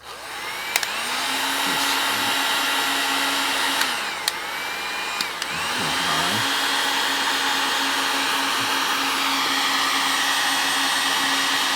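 Electric heat gun switched on and blowing steadily, a rushing air noise with a motor whine, shrinking heat-shrink tubing over a coax connector. It slackens briefly about four seconds in, then runs steady again.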